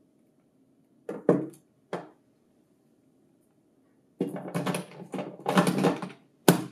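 Lexmark toner cartridge and plastic imaging unit being handled and fitted together: two short knocks, then about two seconds of plastic scraping and rattling as the cartridge slides in, ending in a sharp click near the end as it seats.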